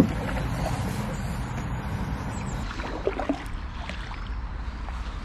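Canoe being paddled on a calm river: quiet paddle strokes and drips in the water over a steady low wind rumble on the microphone, with a single sharp knock right at the start.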